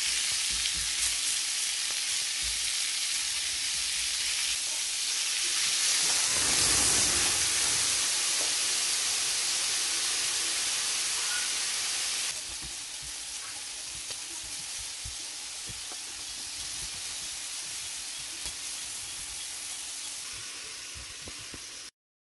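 Beef strips sizzling in a hot cast-iron grill pan with wine added, a steady frying hiss. It swells for several seconds from about five seconds in, drops at about twelve seconds, and stops abruptly near the end.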